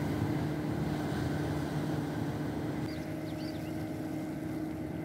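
A steady low engine drone, like a distant motorboat, with a constant pitch over a wash of wind and water. A few faint short high chirps come about three seconds in.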